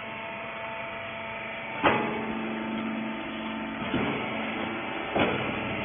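Hydraulic clothes baler humming steadily, with three sharp knocks about two, four and five seconds in, the first the loudest.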